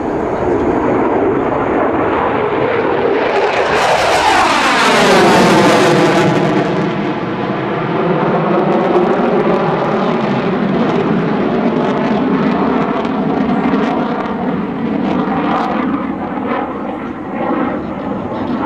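USAF F-15 fighter jet passing overhead, a loud roar from its twin jet engines. The roar swells to a peak about five seconds in and falls in pitch as the jet goes by, then carries on as a steady, slightly quieter roar.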